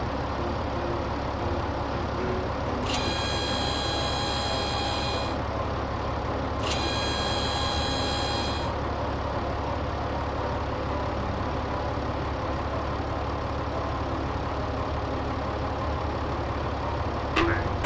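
Bulldozer engine running steadily at idle. Two long high-pitched tones sound over it, about three and seven seconds in.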